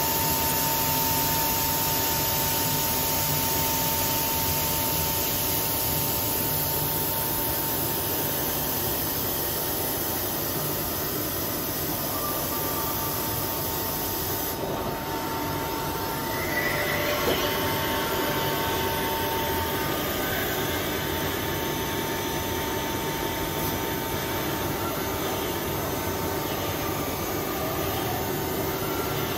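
Studer S40 universal cylindrical grinder running, its wheelhead and drives giving a steady mechanical noise. A thin steady whine sounds over it and stops about two-thirds of the way through.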